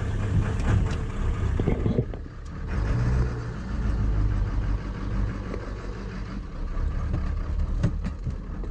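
Ford F350's 7.3-litre Powerstroke diesel running just after starting, heard from inside the cab, its engine speed dipping and rising a little; this is the first run with the newly fitted belt-driven vacuum pump.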